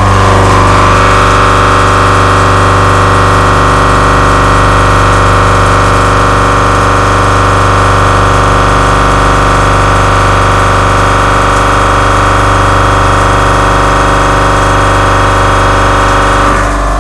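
Face mill cutting metal on a milling machine: a loud, steady whine with many overtones over a low hum, unchanging throughout and fading near the end.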